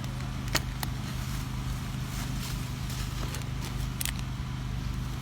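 A steady low engine hum, like an idling vehicle, with a few sharp clicks or taps: one about half a second in, one near a second, and a brighter one about four seconds in.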